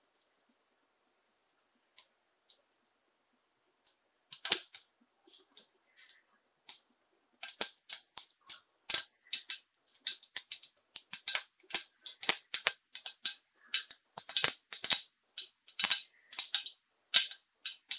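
Mustard seeds popping in hot oil for tempering (tadka). A few scattered pops come first, then a quick cluster about four and a half seconds in, then dense, irregular crackling of several pops a second from about seven seconds on.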